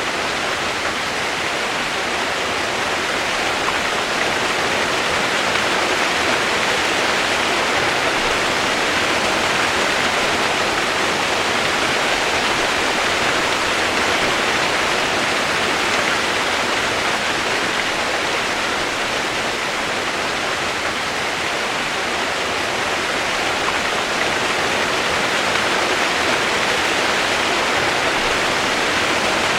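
Steady heavy rain used as white noise: a dense, even hiss with no separate drops or breaks, its level unchanging.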